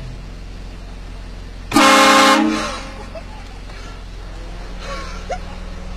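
One short blast of a vehicle-mounted train horn, several notes sounding together as a chord, starting just under two seconds in and lasting under a second. A steady low hum runs underneath.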